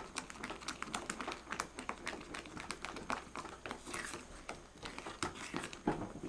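Rubber spatula stirring thick matcha custard cream in a small saucepan, scraping the bottom with many quick, irregular clicks and wet sounds. The custard has thickened, the stage where it scorches most easily, so it is stirred without a break.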